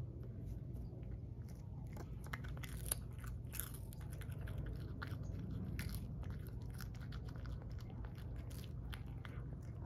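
A cat crunching and chewing a freeze-dried minnow, a run of short, irregular crunches starting about two seconds in.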